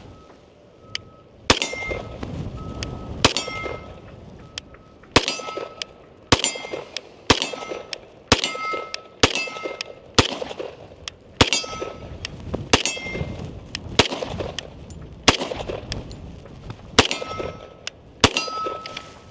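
FNX-45 Tactical .45 ACP pistol fired unsuppressed, about fourteen single shots at a steady pace of one every second or so. A short metallic ring follows several of the shots.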